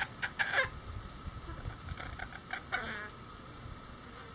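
Bantam chicken pecking at a dried corn cob hung on a string, with short sharp taps and brief falling calls: a quick run near the start and a few more about two to three seconds in, over a steady high hum.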